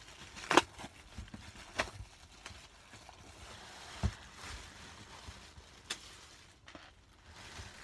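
Clear plastic magazine wrapping crinkling and rustling as it is handled, with a paper letter sliding out, broken by a few sharp crackles.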